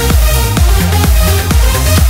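Electronic dance music with a steady, regular beat and heavy bass.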